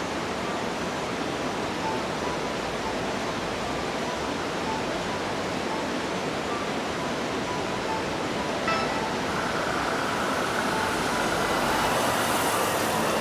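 Steady rushing of a mountain river in the gorge below, with a vehicle's noise growing louder over the last few seconds.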